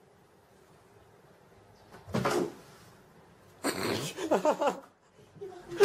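A cat leaping onto and scrambling up a wooden bookshelf: knocks and scraping on the wood about two seconds in and again near four seconds, with a person's voice briefly near the end.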